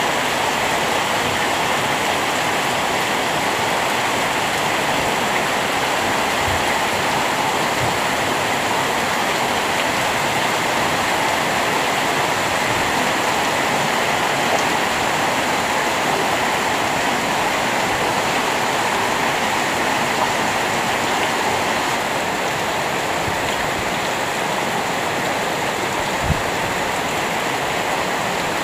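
Heavy rain pouring steadily on tiled roofs and trees, a dense even hiss. Two soft low thumps, about six seconds in and near the end.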